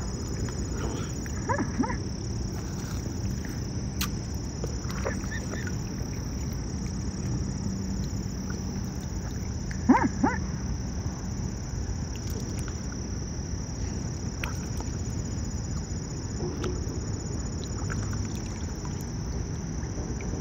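Mute swan feeding at the water's surface, dipping its head and bill under and lifting it out dripping, over a steady low background of water and outdoor noise. Two brief, louder sounds stand out, one about two seconds in and the loudest about ten seconds in.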